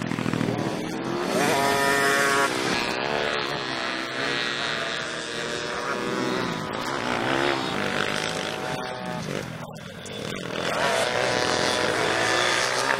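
Small motocross dirt bike's engine revving, its pitch climbing and falling again and again as the rider accelerates and lets off on the track. It eases off briefly near ten seconds in, then revs up again.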